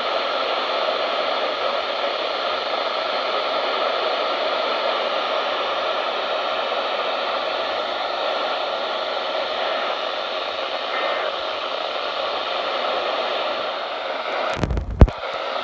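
Steady hiss of radio static from a weather radio receiver with no voice on the channel. Near the end a loud, sharp crackle with a low thump cuts through it.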